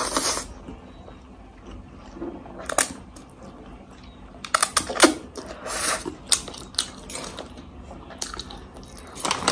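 Close-miked eating of spicy instant noodles: slurping and chewing with wet mouth smacks and clicks at irregular intervals, and a fork clinking in a steel plate near the end.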